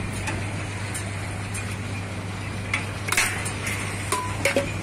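Steel ladle clinking against stainless-steel food pots and lids, a few sharp knocks about three seconds in and again near the end, over steady street traffic noise with a constant low hum.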